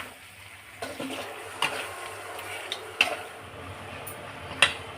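Chicken and masala sizzling in a kadai while a spatula stirs it, knocking and scraping sharply against the pan about four times.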